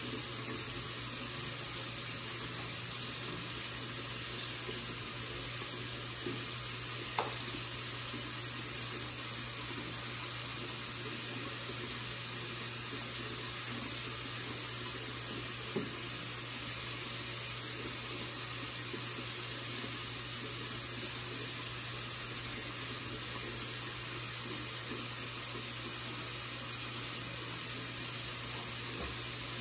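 Steady, even rushing hiss with a low hum underneath, the steady noise of a small bathroom, with two brief light knocks, about seven and sixteen seconds in.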